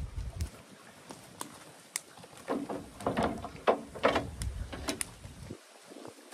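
Steel traps and their chains clanking in a run of irregular knocks and clinks as they are handled and loaded into the dye pot.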